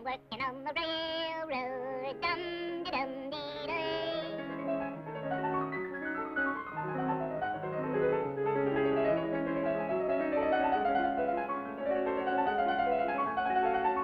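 Cartoon background music: a high, wavering melody with strong vibrato in the first few seconds, then piano-like running notes carrying on steadily.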